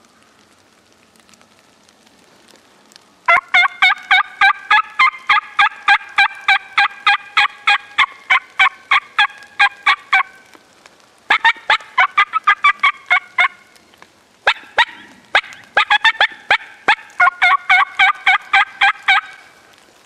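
Wild turkey hen yelping loudly in long, fast runs of about four or five notes a second, three runs with short pauses between: an excited hen calling hard as she comes in.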